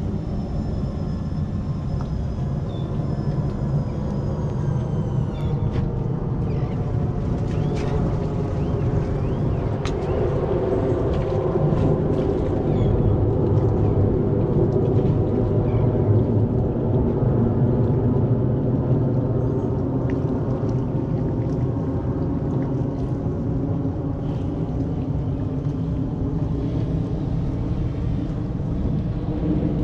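Twin Yamaha 350 hp four-stroke V8 outboards running at idle and low speed while the boat maneuvers out of its slip, a steady low rumble.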